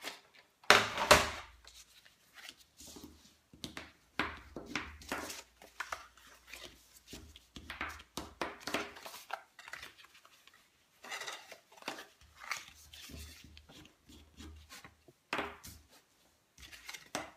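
Cardstock being folded along its score lines and creased with a bone folder: irregular scraping and rustling strokes. A loud knock about a second in as the paper trimmer is moved aside.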